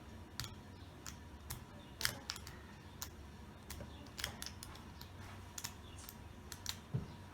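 Homemade metal rake clicking and scraping over the pin stack of an American Lock 1100 padlock held under light tension. It gives faint, irregular clicks with a few sharper ones.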